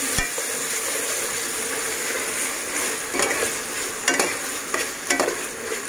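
Onion, tomato and ginger-garlic paste sizzling in hot oil in a metal pot while a metal spatula stirs it, with a few short scrapes against the pot in the second half. This is the masala being stir-fried (kosha) as the base for biryani.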